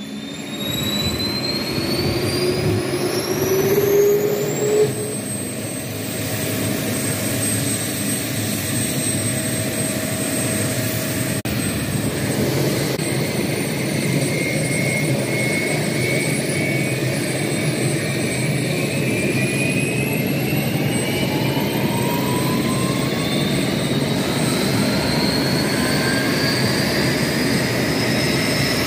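A-4 Skyhawk's jet engine spooling up on the ground start, over a steady rushing roar. A high turbine whine climbs over the first five seconds and then holds level; from about halfway, several whines rise slowly together as the engine gathers speed.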